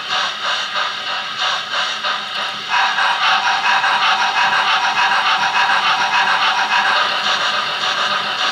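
Steam locomotive sounds from a DCC sound decoder (YouChoos J11 sound project on a Zimo MX644) playing through a small speaker in a Bachmann OO gauge J15 model: a steady rhythm of exhaust chuffs. About three seconds in, the chuff sound changes abruptly as it switches between its normal and clanky chuff sets.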